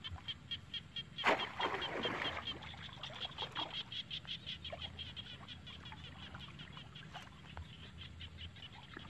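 Water splashing as a bamboo plunge fish trap is pushed down into shallow water about a second in, followed by smaller sloshing as hands work inside the trap. A rapid, high-pitched ticking call, about seven ticks a second, runs alongside for several seconds.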